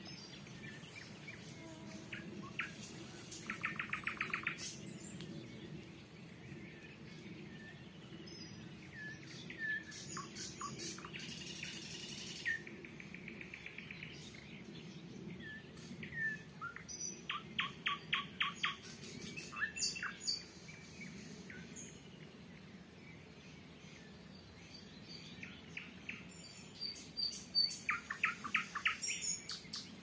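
Nightingales singing in turn: varied phrases of whistles and sharp notes with pauses between, and loud runs of fast repeated strokes a few seconds in, in the middle and near the end. Under the song lies a faint steady low hum.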